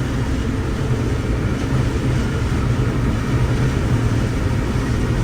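John Deere 9750STS combine running steadily while harvesting corn: a loud, even machine drone with a strong low hum.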